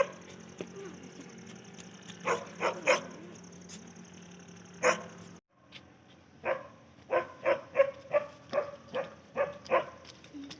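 Dog barking: a few separate barks in the first half, then a quick run of about ten barks in the second half. It is the Bakarwal herders' dog.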